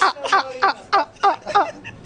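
Men laughing heartily in quick repeated bursts, about four a second, each dropping in pitch, dying down near the end.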